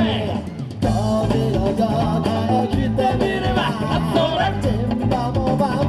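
Upbeat yosakoi dance music with a sung vocal line over a steady drum beat; it thins out briefly at the start and comes back in strongly a little under a second in.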